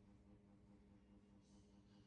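Near silence: faint steady electrical hum as room tone, with a brief soft rustle about one and a half seconds in.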